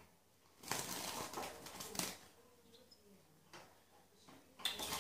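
Small wire birdcage rattling and rustling as a hand reaches in and grabs the bird, with the bird's wings fluttering against the wires: a dense clatter for about a second and a half, then a few soft clicks.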